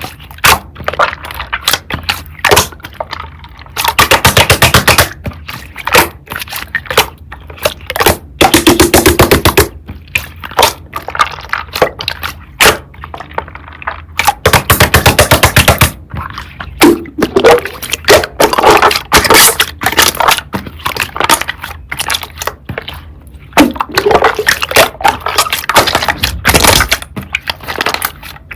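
Slime being squeezed and poked by hand, with loud sticky clicks and pops. Three times it breaks into a run of rapid crackling lasting about a second and a half.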